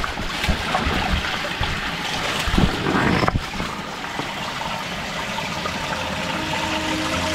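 Small mountain stream running over rocks, a steady rush of water, with a few low bumps in the first three seconds. Soft background music comes in near the end.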